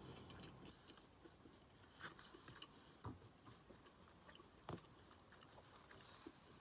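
Faint chewing of food close to the microphone, with three sharp clicks of the mouth and teeth: about two seconds in, about three seconds in, and the loudest near the five-second mark.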